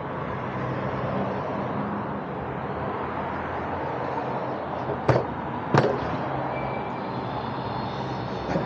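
Steady outdoor background noise, with two sharp clicks from handling metal bike parts or tools a little past the middle, and a fainter click near the end.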